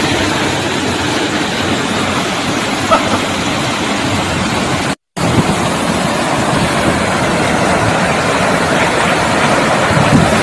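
Steady rushing of waterfalls pouring into a river, cut off by a brief gap about halfway through.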